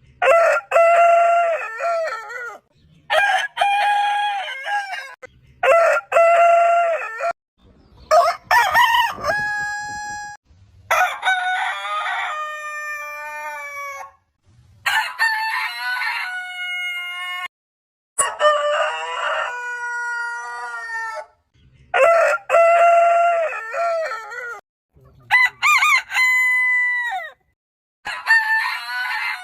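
Roosters crowing, about ten crows in a row, each one to three seconds long and of differing pitch, several ending on a long held note; the crows follow each other closely and most cut off abruptly.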